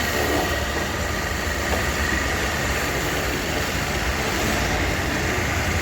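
Pressure washer running steadily: a motor rumble with the hiss of a water jet and a faint steady whine, used to wash silt and rust out of a fuel tank.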